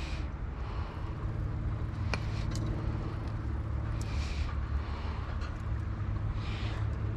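Steady low engine hum, with a few faint clicks and soft rustles over it.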